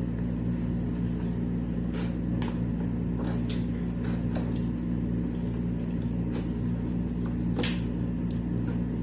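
A steady low mechanical hum with scattered light clicks and knocks, the sharpest about three-quarters of the way in.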